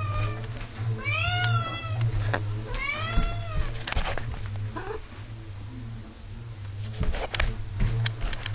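Domestic cat meowing loudly and insistently for its dinner: two long, drawn-out meows that rise and fall in pitch in the first few seconds. Scattered clicks and knocks come later, over a steady low hum.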